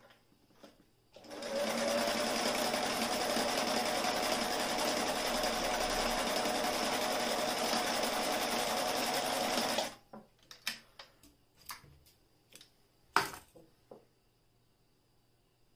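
Singer 457 Stylist zigzag sewing machine running steadily at speed for about eight and a half seconds as it stitches a strip of material, then stopping sharply. Afterwards come a few light clicks and one sharper knock.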